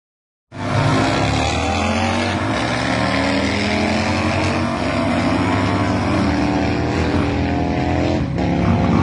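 Race engines idling and revving, a loud continuous engine drone whose pitch rises and falls, starting abruptly about half a second in.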